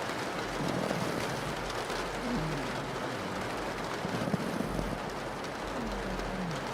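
Steady rain pattering on a window, with a pug snoring underneath: slow low breaths every couple of seconds, some sliding down in pitch.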